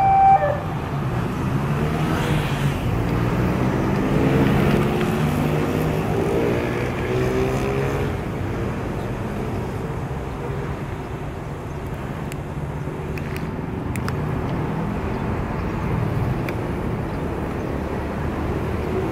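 Road traffic moving off over a railway level crossing: bus and motorcycle engines accelerating, their pitch rising over the first several seconds, just after a horn note cuts off. The engines then settle into a lower, steadier rumble.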